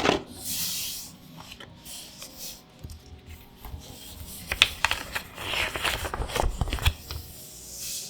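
Hands handling the packaging and cards of a boxed trading-card deck, with irregular rubbing and scraping and a few light taps, busiest in the second half.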